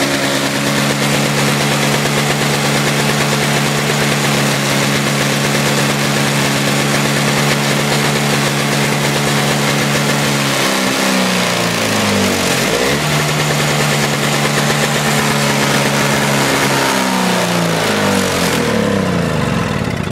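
Toro CCR 2450 snowblower's small two-stroke engine running and smoking. Its speed sags and picks back up about ten seconds in, then sags again near the end.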